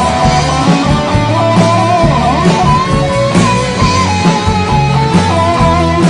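A live rock band playing an instrumental passage with no vocals, guitar to the fore over a moving bass line and a steady beat.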